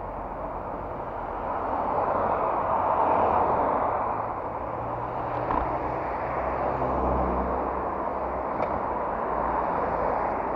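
Motorcycle running at low revs, its low engine hum under a steady rush of wind and road noise on a helmet-mounted microphone. The rush swells a couple of seconds in, and the engine hum is clearest past the middle.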